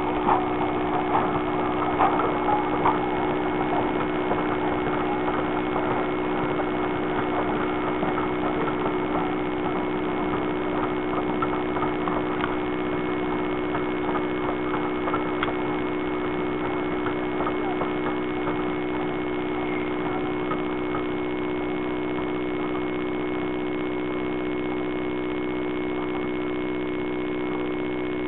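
A steady machine hum made of several even tones. Over it come irregular clicks and knocks, strongest in the first few seconds and lighter after, as a train of coaches rolls slowly by.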